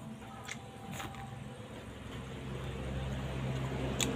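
A motor vehicle engine humming low and steady, growing louder as it approaches, with a few faint clicks.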